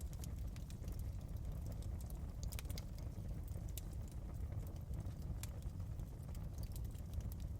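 Wood fire burning in a fireplace: irregular crackles and snaps over a steady low rumble of the flames.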